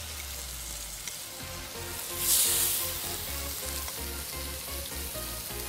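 Soy-marinated beef pieces sizzling as they sear in hot oil in a frying pan, swelling louder about two seconds in. Faint background music with a steady beat underneath.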